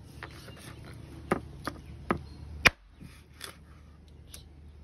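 Kitchen knife chopping raw chicken on a plastic cutting board: about six sharp strikes starting about a second in, the fourth the loudest, then lighter ones, over a steady low hum.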